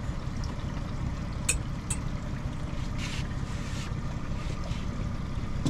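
Steady low rumble of a fishing boat under way, with water and wind noise. Two sharp clicks come about a second and a half in, and a short hiss about three seconds in.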